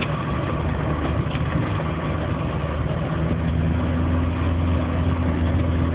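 Land Rover engine running steadily as it drives through deep snow, heard from inside the cab. The engine note grows a little stronger about three seconds in.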